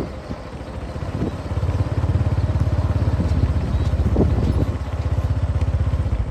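Small motorcycle engine running at low speed with an even beat of exhaust pulses. It grows louder and steadier from about two seconds in.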